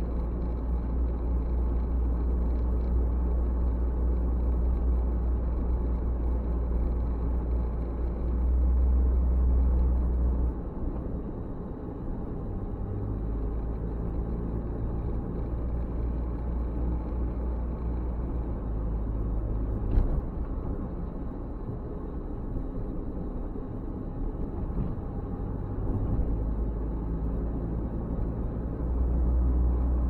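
Car driving along a road: a steady low rumble of engine and tyre noise, easing off for a couple of seconds about ten seconds in before building again. A single sharp click about twenty seconds in.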